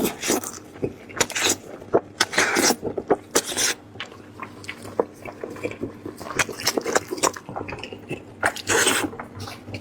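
Close-miked chewing and lip-smacking on braised lamb head meat: an irregular run of short clicks and smacks.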